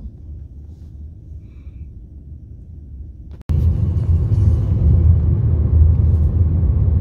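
Low rumble inside a car's cabin. About halfway through it jumps suddenly to the louder, fuller engine and road rumble of the car driving.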